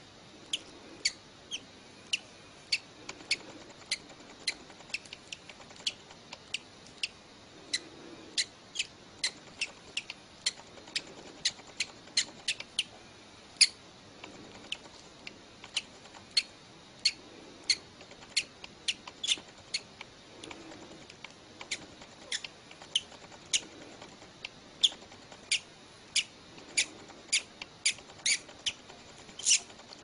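A hatchling bird giving tiny, very short high-pitched peeps in an irregular run, one to three a second, as it breaks out of its egg.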